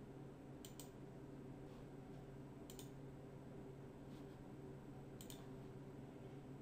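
Faint computer mouse clicks, a few quick double clicks about two seconds apart, over a low steady hum.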